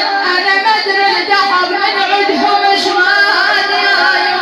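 A woman's solo voice, a mullaya, chanting a na'i, a Shia mourning lament, in long, wavering sung lines that bend and glide in pitch.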